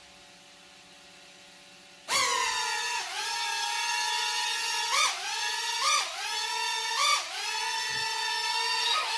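Buzzy electronic tone from a toy airplane's sound-effect speaker. It starts suddenly about two seconds in and holds a steady pitch, with short upward swoops about once a second. A faint steady hum comes before it.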